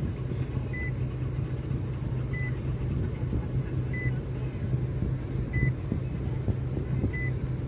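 A steady low hum with a short, high electronic beep repeating about every second and a half.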